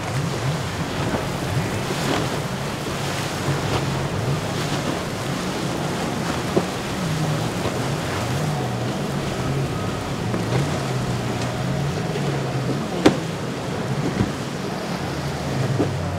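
Outboard engines of a large center-console boat running through rough inlet chop, their drone rising and falling in pitch as the throttle and load change, over rushing water and wind on the microphone. A couple of sharp clicks are heard about halfway through and again near the end.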